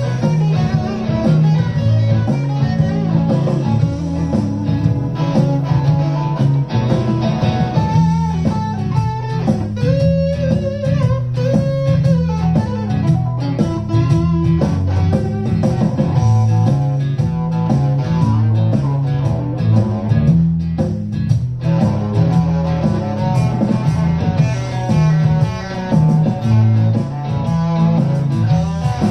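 Electric guitar played through an amplifier, free improvisation of single-note lines with bent and held notes, over a repeating low bass-note pattern.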